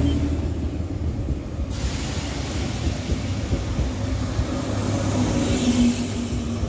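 Z2N double-deck electric multiple unit running along the platform: a steady low rumble of wheels on rail, with a humming motor tone that fades soon after the start and returns about five seconds in.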